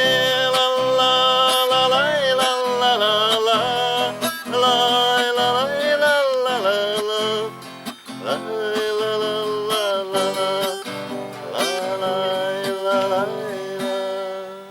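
Closing bars of a song: acoustic guitar with a sustained, sliding melody line over it, the sound dropping away at the very end.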